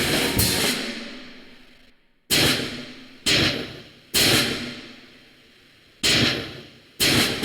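A series of sharp, crash-like percussive hits in electronic sound design: five irregularly spaced strikes, each dying away over about a second.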